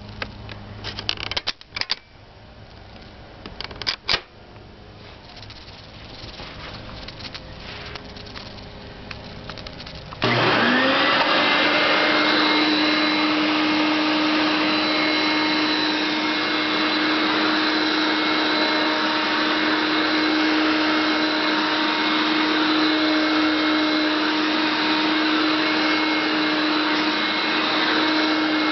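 Hoover Innovation Turbo Master upright vacuum cleaner switched on about ten seconds in: its motor spins up within a second and then runs steadily, a loud rush of air with a steady hum and whine over it. Before that, a few clicks and knocks of the machine being handled.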